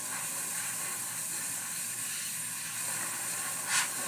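Copic airbrush system spraying steadily: compressed air from the can rushing past a Copic Sketch marker's chisel tip as a continuous hiss, misting marker ink onto a card. It swells briefly louder near the end.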